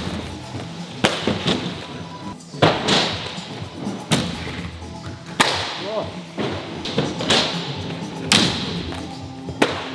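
Aggressive inline skates landing on the skatepark floor, several sharp thuds at irregular intervals as skaters land a jump one after another, over background music.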